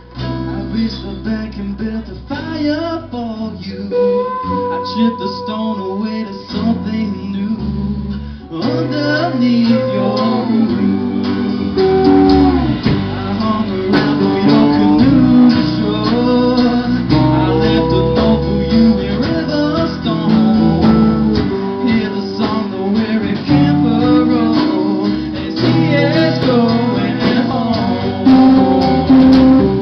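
Live band playing a song: strummed acoustic guitar with electric guitar and bass guitar, and a man singing. About eight and a half seconds in the band comes in fuller and louder.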